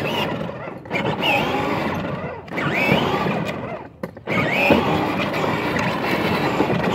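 Battery-powered ride-on toy car running, its electric motor and hard plastic wheels rumbling on asphalt, cutting out briefly three times as it stops and goes.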